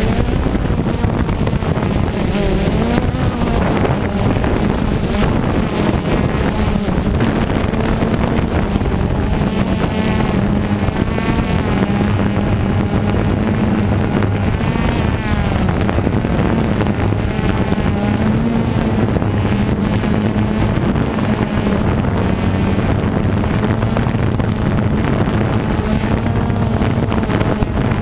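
DJI Phantom 2 quadcopter's electric motors and propellers whirring, heard from its own onboard camera, their pitch wavering up and down as it lifts off the grass and flies low. Wind buffets the microphone.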